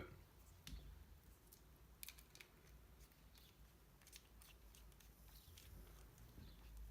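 Near silence with a few faint, light clicks of small metal tools and knife parts being handled.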